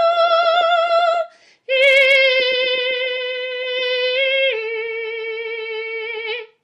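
A woman's voice singing long wordless notes a cappella, with slight vibrato. A held note breaks off for a breath about a second in, then a lower note is held for several seconds, steps down once more and stops near the end.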